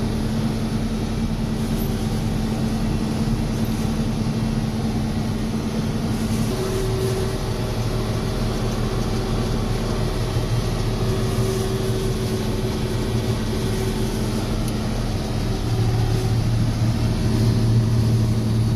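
John Deere 6620 combine running steadily while harvesting soybeans, heard from the operator's cab: a continuous engine and machine drone. Its pitch shifts about six seconds in, and it grows louder near the end.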